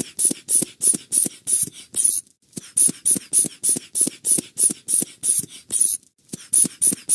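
Cartoon repair sound effect: rhythmic scraping tool strokes, about three a second, in runs broken by short pauses about two and six seconds in.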